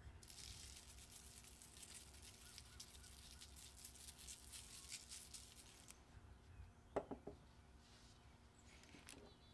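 Faint crackly hiss, then a few light metallic clinks from a metal sheet pan being handled about seven seconds in, and one more near the end.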